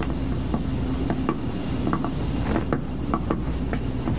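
Irregular light clicks and small knocks of gear being handled, a few a second, over a steady low hum.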